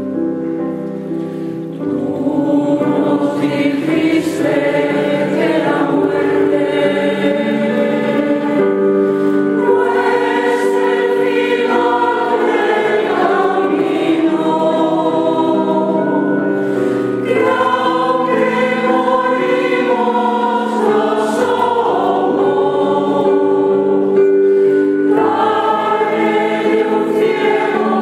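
Mixed choir of women and men singing a sacred choral piece in harmony, held chords changing every couple of seconds; it is softer at first and grows fuller about two seconds in.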